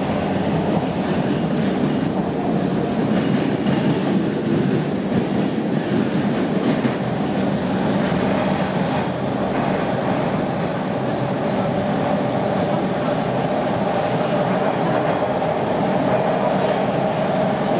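TTC Line 2 subway train (Bombardier T1 car) running through the tunnel, heard inside the car: a steady rumble of wheels on rail, with a whine that grows louder in the second half.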